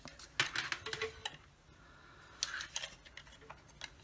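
Handling noise from a plastic plug-in power adapter and its cable being picked up: light clicks and scratchy rustles, one cluster in the first second and another about two and a half seconds in.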